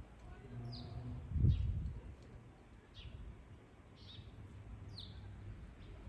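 Sparrows chirping: about five short chirps, roughly one a second, over a low background hum. A brief low rumble about a second and a half in is the loudest sound.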